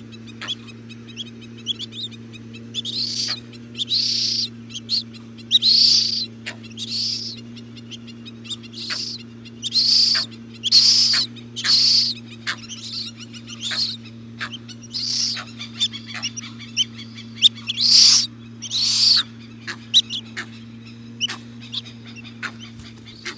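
Limpkin chick giving repeated high, thin peeping calls, about one a second and irregularly spaced, over a steady low hum.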